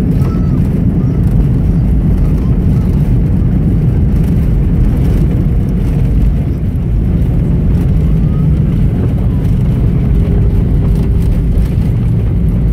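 Steady loud rumble in the cabin of a Boeing 737-900 twin-jet as it comes in to land, from its engines and rushing air. A faint humming tone comes in over the rumble in the last few seconds.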